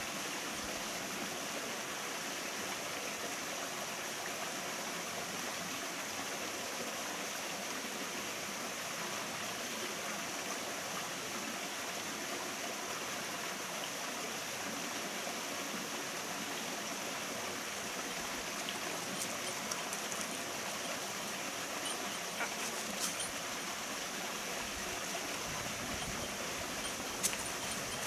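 Mountain stream running: a steady, even rush of flowing water. A few light clicks come through near the end.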